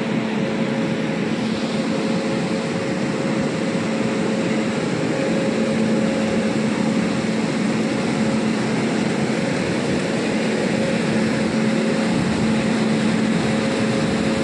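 WAP-7 electric locomotive's cooling blowers and auxiliary machinery running steadily: a constant loud whir with a low, even hum underneath.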